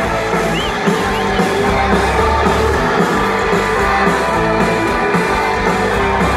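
Rock band playing live through a large outdoor PA: electric guitars, drums and keyboards in a loud instrumental passage with a steady beat.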